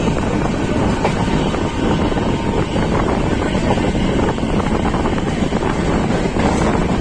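Wind rushing over the microphone from a moving passenger train, over the steady rumble of its wheels on the rails. The noise runs loud and even, with no break.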